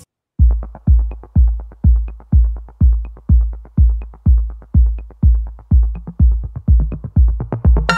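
Background electronic dance music: a heavy kick drum on every beat, about two a second, with light ticks above it. It starts after a brief silence, and a synth melody comes in near the end.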